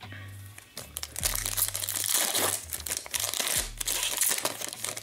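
Foil wrapper of a hockey card pack being torn open and crinkled by hand, a dense crackle that starts about a second in and runs until near the end.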